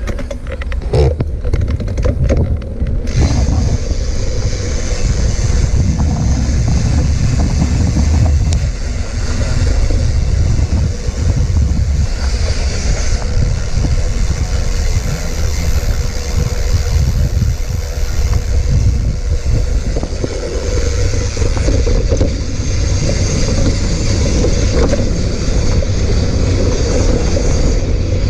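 Mountain bike riding down a rough trail: a steady low rumble of wind on the microphone, with the tyres and bike rattling over the ground, and a few sharp clicks and knocks in the first three seconds.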